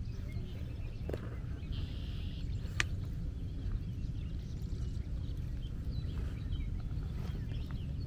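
Outdoor ambience on the water: a steady low rumble with faint scattered chirps, and one sharp click about three seconds in.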